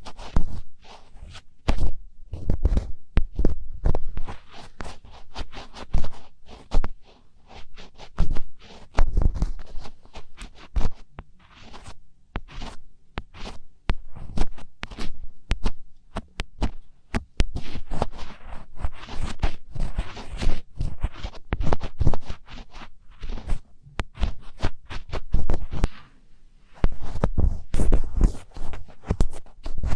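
Close-miked ASMR scratching: quick, irregular scratches and clicks in a dense stream, with a few stretches of deeper, heavier rubbing.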